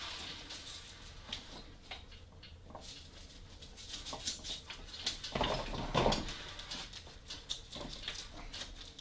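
Handling noise from a folded collapsible wagon being pushed together and strapped: the fabric and strap webbing rustle, with small clicks and knocks from the metal frame and a louder knock and rattle a little past the middle.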